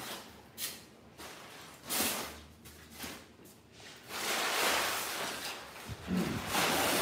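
Crumpled brown packing paper rustling and crackling as it is rummaged through and pulled out of a cardboard box, in several bursts, the longest about four seconds in.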